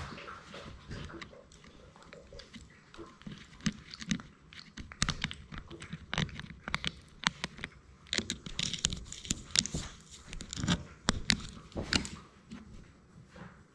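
Labrador Retriever puppy chewing and mouthing the GoPro camera right at the microphone, its teeth clicking and scraping on the plastic. The crackling clicks come thick and fast from about five seconds in until near the end.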